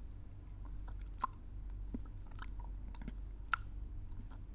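A person lapping water with the tongue, the way a dog or cat drinks: irregular faint wet clicks and smacks.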